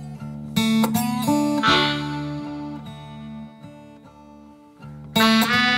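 Guitar music, plucked notes and strummed chords, dropping quieter in the middle before loud strums come back in near the end.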